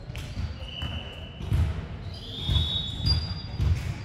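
Athletic shoes squeaking on a hardwood gym floor as volleyball players shift position, with several dull thuds in a large echoing hall.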